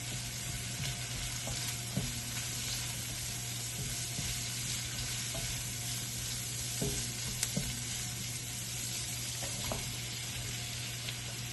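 Food sizzling in hot oil in a pan over high heat, with a steady frying hiss. A utensil stirring it clicks against the pan now and then.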